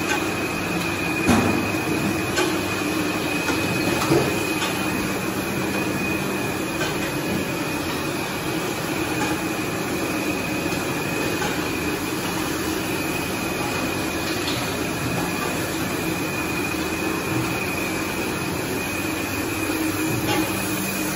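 A 40-bottle-per-minute soft drink bottling line running: the rotary rinser-filler-capper and bottle conveyor give a steady mechanical hum with a thin high whine. A few sharp clinks come in the first four seconds.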